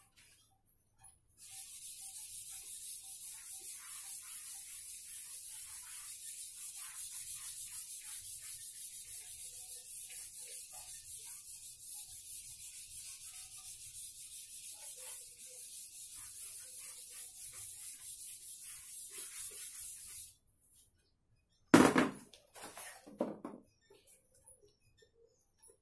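A whiteboard eraser wiped in quick back-and-forth strokes across a whiteboard, a steady rubbing that stops about 20 seconds in. Near the end a sharp knock and a couple of lighter knocks follow.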